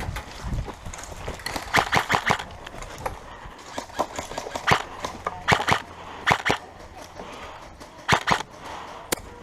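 Airsoft guns firing: short bursts of sharp, snapping shots, a quick run of them about two seconds in and further single and paired shots through the rest.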